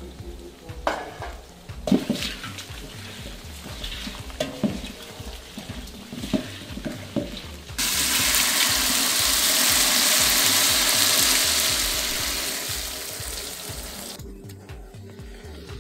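A stream of liquid poured from a plastic bag into a large aluminium pot of chopped ingredients: a loud, steady splashing hiss that starts suddenly about eight seconds in and tapers off over the next six seconds. Before it come a few light knocks and rustles as ingredients are handled in the pot, over quiet background music.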